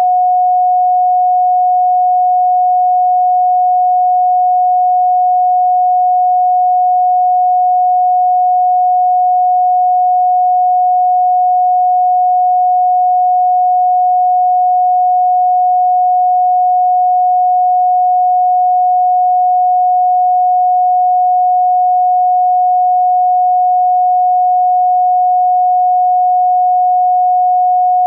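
Electronically generated pure sine tone at 728.131 Hz, held at one steady pitch and level without a break.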